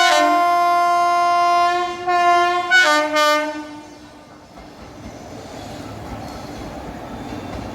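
WAP7 electric locomotive's horn blowing one long blast that breaks into a lower, different note about three seconds in and stops about a second later. The steady rumble of the train running on the rails follows.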